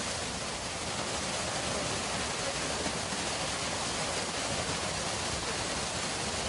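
Water pouring down a waterfall cut into the stone, a steady, even rushing with no break.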